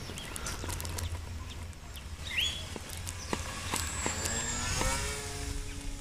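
Wind rumbling on the microphone while the electric motor and propeller of a Skyartec Cessna 182 RC plane whine overhead as it passes close by, the whine dropping slightly in pitch near the end. A bird chirps once briefly midway.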